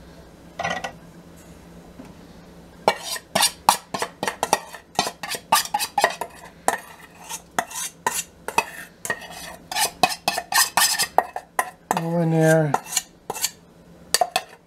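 Metal spoon clinking and scraping against a bowl in rapid, irregular strikes as thick barbecue sauce mixture is scraped out over chicken in a slow cooker. A brief low humming tone sounds about twelve seconds in.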